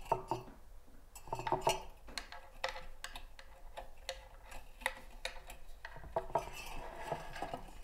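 Chicken wire being bent and linked around a glass vase by hand: irregular light metallic clicks and scrapes as the wire ends are twisted together.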